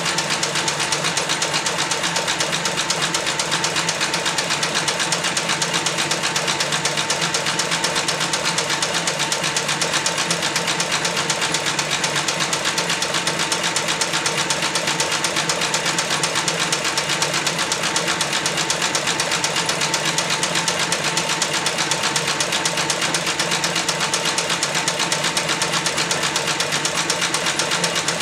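Heavy-duty cylinder-arm leather sewing machine with a #24 needle and 207 thread, stitching through thick layered leather at a fast, steady pace without a break: a rapid, even run of needle strokes over a steady hum.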